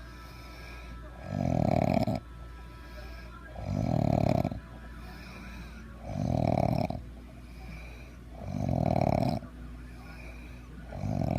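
Heavy snoring: one snore about every two and a half seconds, each about a second long, with quieter spells between. Five snores in all, the last one starting near the end.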